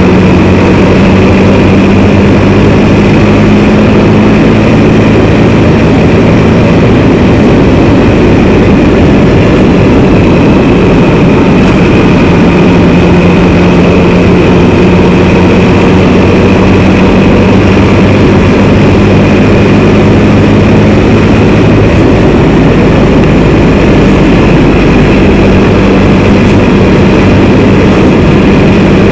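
Can-Am Spyder three-wheeled motorcycle riding along at a steady speed: a constant engine note under loud wind and road noise, the engine pitch shifting slightly a few times.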